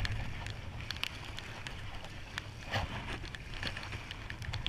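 Wind rumbling on the microphone while a spinning reel is cranked, with light irregular clicks and splashes as a hooked sea bass is drawn in at the surface.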